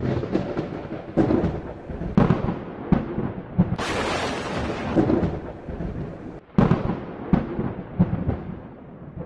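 Thunder sound effect: rolling thunder with a series of sharp crackling lightning strikes, about a dozen cracks over the stretch, cutting off abruptly near the end.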